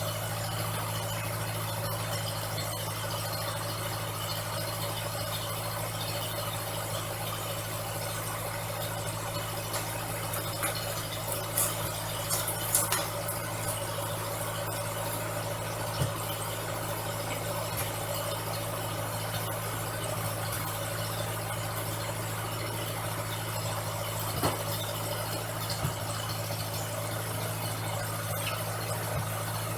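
Engine idling steadily with an even low hum, a few sharp clicks or knocks standing out now and then.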